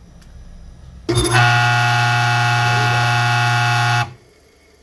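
A 2 hp WEG electric motor switched on: a loud, steady buzzing hum with a strong low tone and many overtones starts suddenly about a second in and cuts off about three seconds later. The owner calls the motor's noise strange and dry ("barulho seco").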